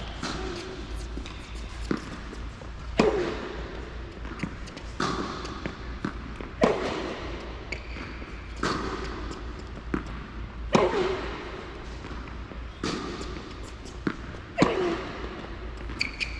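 Tennis rally: racket striking the ball about every two seconds, alternating between a loud close hit and a fainter one from the far end of the court, with ball bounces between. Each hit echoes in a large indoor tennis hall.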